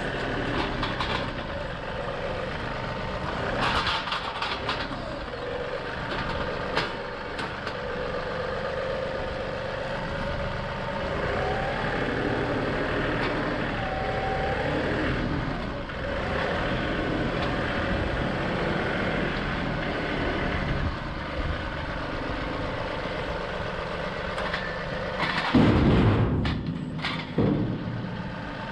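John Deere 2038R compact tractor's diesel engine running steadily while the loader grapple works. About three-quarters of the way through comes a loud heavy thump with a few knocks after it, as a tree stump drops into a steel dump trailer.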